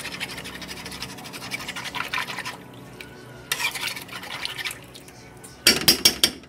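A metal spoon stirring warm milk in a metal pot and scraping quickly around the bottom to dissolve a lump of dulce de leche. Near the end come four or five sharp clinks of the spoon against the pot.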